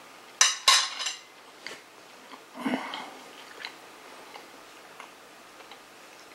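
Cutlery clinking against dishes: two sharp, ringing clinks about half a second in, a softer clatter near the middle, then a few small light knocks as tableware is handled.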